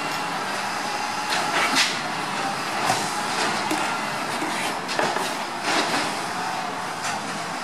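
Small automated side-loader garbage truck running while its hydraulic arm picks up a wheeled trash cart and empties it into the hopper, with several clanks and knocks as the cart is handled.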